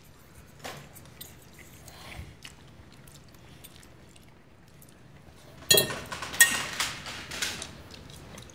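Forks clinking and scraping on china pasta plates while eating tagliatelle, with faint clicks at first and louder, ringing clinks and scrapes starting a little before six seconds in.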